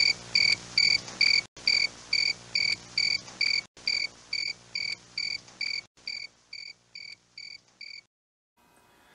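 A steady series of short, high, cricket-like chirps, about two and a half a second, over a low hum. The sound breaks off briefly three times, fades, and stops about eight seconds in.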